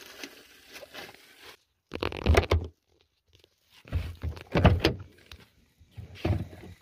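Several heavy thumps and clunks in three bunches, about two, four and six seconds in, with quieter rustling and handling noise between.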